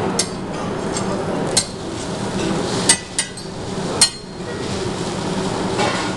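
Sharp metallic clinks and knocks of steel kitchen utensils and dishes, about half a dozen strikes a second or so apart, the loudest two ringing briefly, over a steady kitchen hum.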